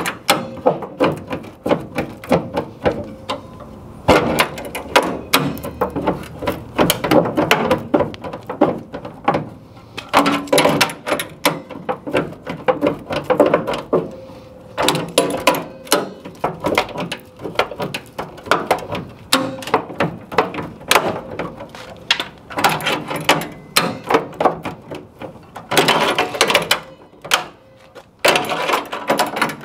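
Steel body-panel seam being wrenched apart with locking C-clamp pliers: a dense run of sharp metallic cracks, creaks and clicks as the spot welds holding the two pinched sheet-metal layers break loose. It comes in bursts with short pauses.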